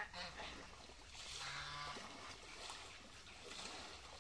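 Faint sloshing of pond water as people wade through it dragging a fishing net, with a low, drawn-out call lasting under a second about a second and a half in.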